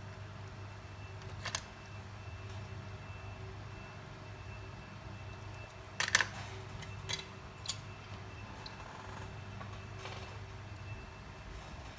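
Steady low electrical hum of repair-bench equipment, with a few sharp clicks and taps: one about a second and a half in, a loud cluster around the middle, and a faint one near the end.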